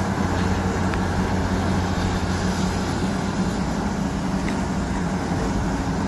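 Diesel engine of a large Volvo crawler excavator running steadily with a low drone while the machine swings and dumps its bucket.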